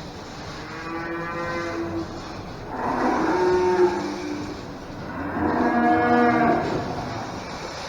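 Cattle mooing: three long, drawn-out calls a second or so apart, the first fainter and the next two louder.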